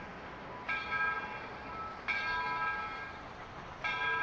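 Steam locomotive bell on Soo Line 4-6-2 Pacific 2719, swinging and ringing three times about a second and a half apart, each ring fading before the next.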